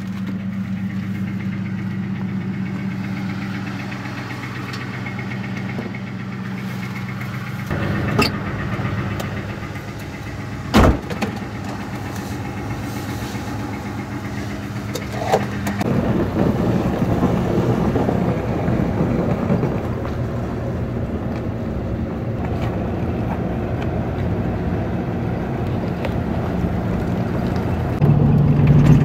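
Pickup truck engine idling, heard from inside the cab as a steady low hum. A single sharp thump comes about eleven seconds in. From about sixteen seconds the engine sound grows louder and rougher, as when the truck is driving.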